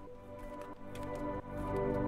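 Background music: a run of held, pitched notes.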